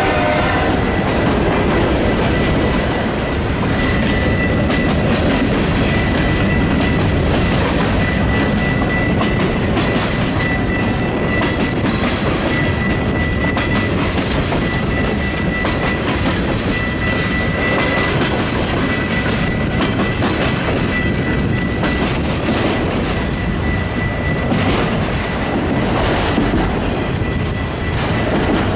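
Metra commuter train running by at close range: a dense, steady rumble of the cars with rapid wheel clicks over the rail joints and a thin high tone running through it. The last of a horn blast cuts off right at the start.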